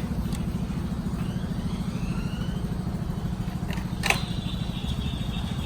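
A small engine or motor running steadily with a fast, even low pulse. A single sharp click comes about four seconds in.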